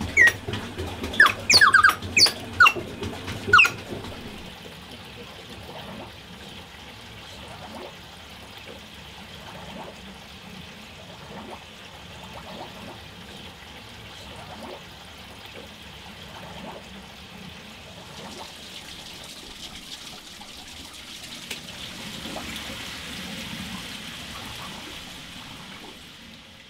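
Water-powered cuckoo clock: its wooden organ pipes sound the last few cuckoo calls in the first four seconds. After that, water runs and trickles steadily through the clock's trough and over its water wheel, growing a little louder near the end.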